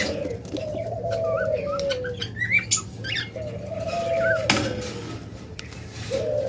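Doves cooing in long, slightly falling calls, three of them, with small cage birds chirping higher over them. A sharp clatter sounds about halfway through, over a steady low hum.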